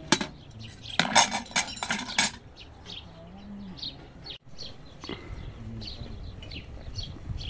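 Metal cutlery clinking and scraping against dishes, a rapid run of clinks lasting about a second, with birds chirping in the background.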